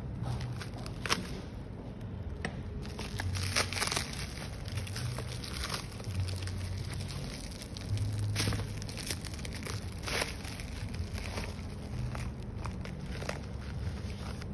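Plastic courier mailer bags crinkling and being torn open by hand, in irregular crackles and rustles that swell in a few louder bursts, with a low hum coming and going underneath.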